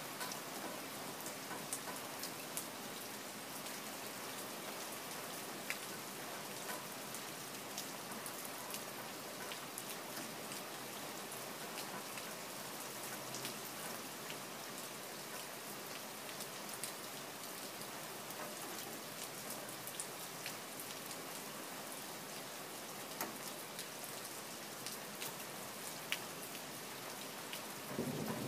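Steady rain falling and splashing, an even hiss with scattered sharp drop ticks. A loud low rumble of thunder begins right at the end.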